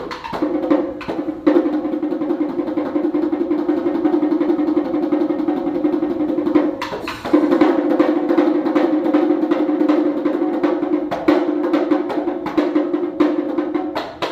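Tambora, the two-headed Dominican merengue drum, played solo in a fast, dense run of strokes with a ringing drum tone throughout. The playing breaks off briefly about seven seconds in and again about eleven seconds in.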